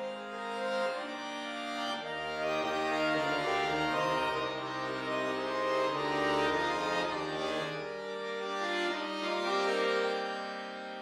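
Solo Cooperfisa concert accordion playing classical music: sustained chords, with deep bass notes coming in about two seconds in and dropping out near the end.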